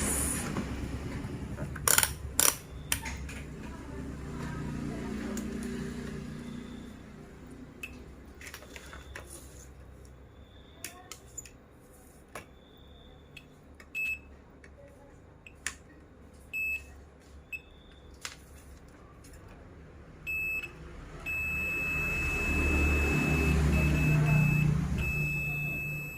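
A couple of sharp clicks, then a digital multimeter's continuity beeper giving several short high beeps and then a long, nearly unbroken beep as the probes touch laptop motherboard test points. A beep marks a low-resistance path, here while rails are checked for a short.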